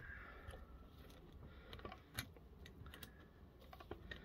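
Faint, scattered light clicks and taps of metal parts and hand tools on a refrigerator compressor's electric motor as its screws are worked loose; otherwise near silence.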